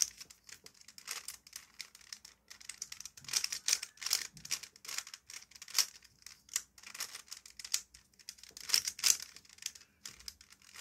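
Stickerless plastic 3x3 Rubik's cube being turned by hand: irregular clicking and clattering of the layers, in quick runs of turns with short pauses between.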